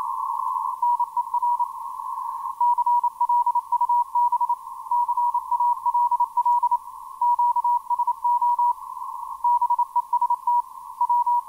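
Morse code (CW) signal on the 10-metre amateur band, received by an RTL-SDR in CW mode. It is a single steady beep keyed on and off in dots and dashes over a narrow band of radio static hiss. The keying starts about a second in and breaks off for a moment now and then.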